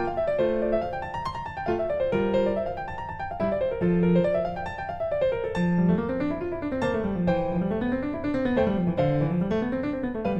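Background piano music: quick rising and falling arpeggios, with a lower line of rolling notes joining about halfway through.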